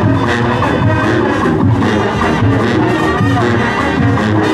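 Marching band playing, brass over drums with a steady beat.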